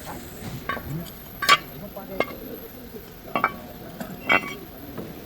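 A series of sharp metallic clinks and knocks, about five of them spread out unevenly, the loudest about one and a half seconds in: tools and brake parts being handled during rear brake pad and rotor work.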